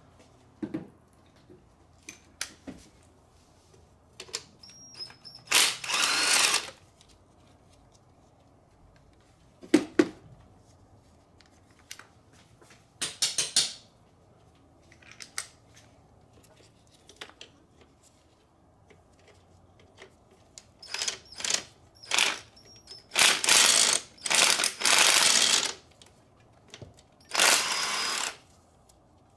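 Ratchet wrench clicking in several short runs as it works the bolts holding the fuel rail, with scattered clicks and taps of tools on metal between. The longest runs come in the last few seconds.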